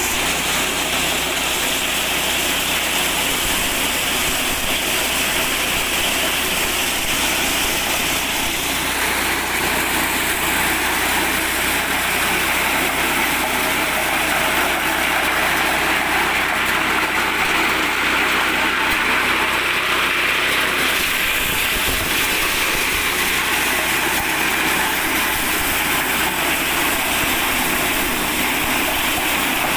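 Mini corn sheller driven by an 8 hp petrol engine, running steadily at a constant level, with a rushing noise over the engine's drone.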